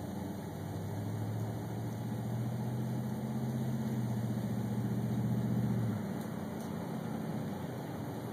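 Electric motor of the truck's wheelchair-loading equipment running with a steady hum, then cutting off sharply about six seconds in.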